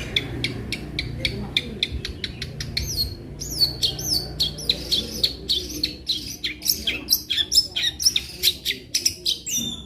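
Long-tailed shrike (cendet) singing a fast, unbroken rolling run of sharp chirps and downward-sweeping whistles, with mimicked calls of other birds worked in.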